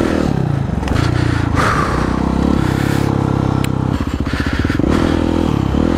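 Kawasaki KX450F four-stroke single-cylinder motocross engine running hard under the rider's throttle, the revs dropping just after the start and climbing again. About four seconds in it falls to a low chugging pulse before picking up again near the end.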